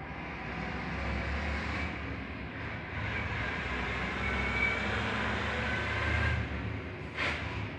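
Road traffic: a low vehicle rumble that swells about a second in and fades near the end, with a faint high whine in the middle and a brief sharper noise near the end.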